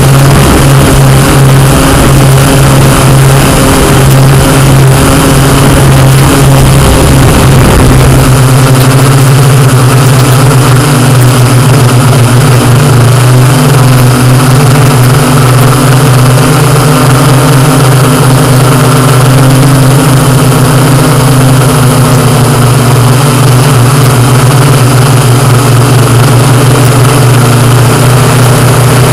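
Quadcopter drone's motors and propellers humming close to its own microphone, a loud steady buzz of several fixed pitches. A lower rumble underneath drops away about eight seconds in.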